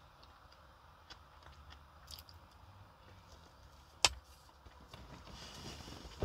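Quiet mouth sounds of a person chewing soft food, with small clicks. About four seconds in, a sharp clink as a spoon is set down on the plate, and a louder dull thump near the end.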